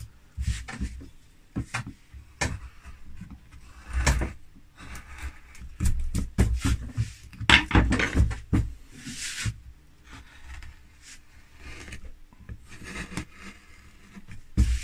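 Hand carving chisel cutting into linden wood: irregular scraping cuts and small knocks, busiest in the middle.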